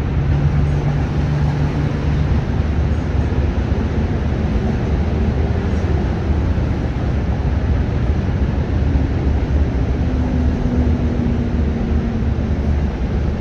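Steady low outdoor rumble of traffic, with a faint engine hum in the first couple of seconds and another, slightly falling, near the end.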